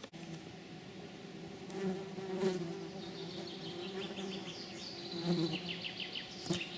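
A flying insect buzzing steadily, its pitch wavering a little. From about three seconds in, a bird sings a run of short, repeated high notes behind it.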